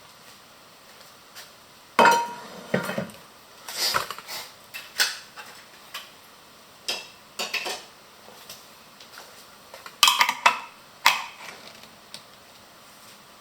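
Kitchenware clinking and clattering: a string of irregular sharp knocks, some with a short ring, loudest in a cluster about two seconds in and again around ten seconds in.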